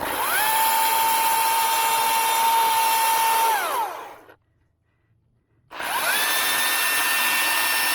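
Milwaukee M18 battery chainsaw spinning up with a rising whine, running steadily for about four seconds and winding down. It starts again about two seconds later: two runs of the chain for the cuts of an open-face notch.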